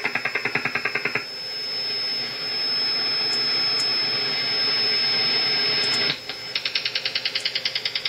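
Shortwave over-the-horizon-radar-like pulsed signal heard through a WebSDR receiver in AM mode: a rapid pulsing at about ten beats a second for the first second. Then a steady radio hiss for about five seconds while the receiver is tuned across the band, and the pulsing returns near the end.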